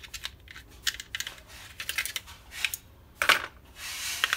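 Small screwdriver working the metal levers and linkages out of a car's electric door-lock mechanism: a run of irregular light clicks and metal taps as parts are pried free and set down, the loudest about three seconds in, with a short scrape near the end.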